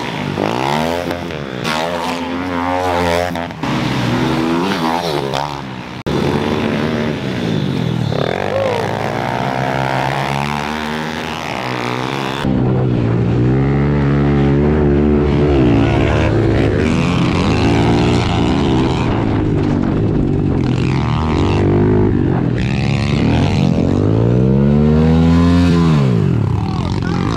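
Several pit-bike engines racing past, their revs rising and falling as the riders work the throttle and gears. After a change of view, one pit bike is heard from on board, revving hard up and down through the corners, with the revs dropping away near the end.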